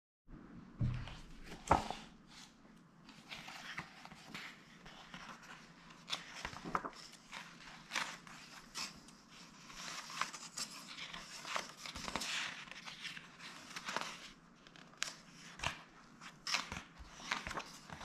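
Pages of a large softcover book being turned by hand: paper rustling and flicking with short sharp snaps, and a couple of knocks near the start.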